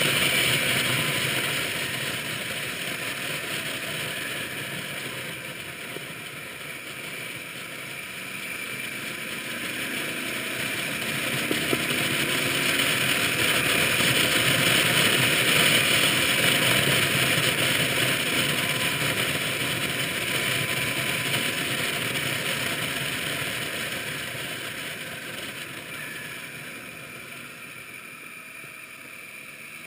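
Moving motorcycle heard from a camera mounted on the bike: engine running under a rush of wind noise that rises and falls with speed. It is loudest around halfway through and quietest near the end.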